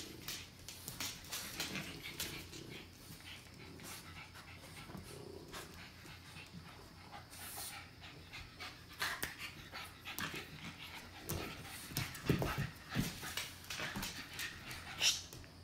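French bulldog puppies play-fighting: panting and scuffling with many small clicks and rustles, and short louder bursts of play noise in the second half, loudest about twelve seconds in.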